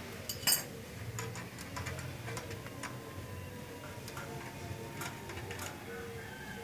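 Irregular metallic clicks and taps from hand tools working the bolt of a motorcycle's rear brake torque arm at the wheel hub, with one louder clack about half a second in.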